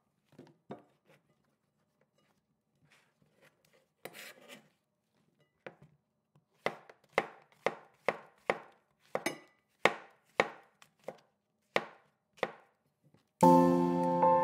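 A knife chopping on a wooden cutting board: a few scattered cuts at first, then a steady run of strokes about two a second. Music comes in just before the end.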